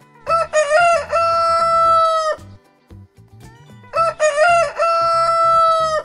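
Rooster crowing twice. Each crow is a few quick broken notes ending in one long held note.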